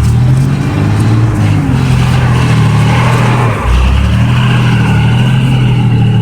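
Vehicle engine revved hard and held at high revs under load, with a brief dip about three and a half seconds in before it picks up again; it cuts off near the end.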